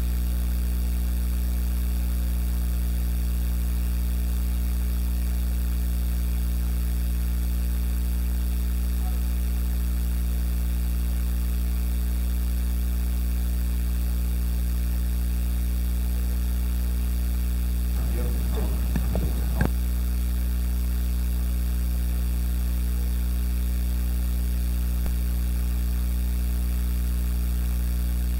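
Loud, steady electrical mains hum with a stack of evenly spaced overtones from the sound system while the preacher's microphone is cut out. A brief, faint voice comes through about two-thirds of the way in.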